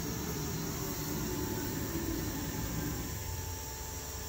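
Haas TM2 vertical machining center moving an axis under MDI control: a low, steady machine hum that drops away about three seconds in as the move ends.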